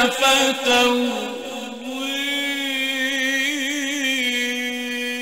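Melodic Quran recitation by a male reciter. After a few short phrases he holds one long note, drawn out with small wavering ornaments.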